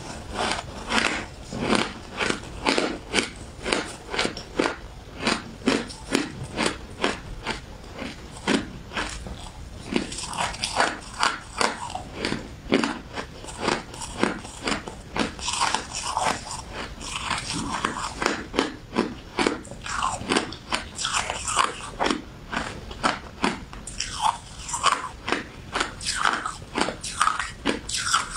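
Close-up chewing and crunching of shaved ice in the mouth: a steady run of short crunches, about two or three a second.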